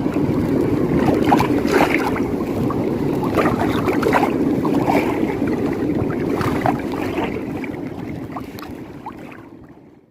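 Sea water splashing and lapping, with wind on the microphone and many small crackling splashes. The sound fades out over the last few seconds.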